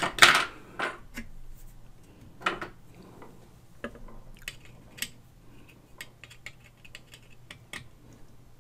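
Screwdriver undoing the screw of the brake block on the steel motor board of a Garrard 202A turntable: scattered small metallic clicks, taps and scrapes, the loudest just after the start.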